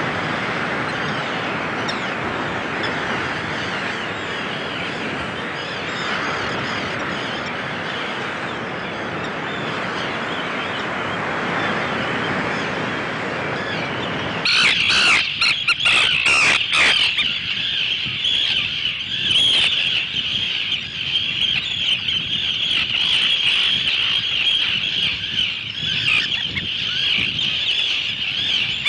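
Common and Arctic terns calling in a colony. The first half is a steady wash of many overlapping calls. About halfway through the sound changes suddenly to nearer, continuous high-pitched, harsh chattering, with a few sharp clicks at the change.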